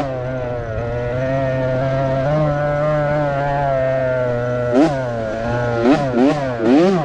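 A kids' motocross dirt bike engine running under way: a fairly steady pitch for nearly five seconds, then the revs rise and fall quickly several times as the throttle is opened and closed.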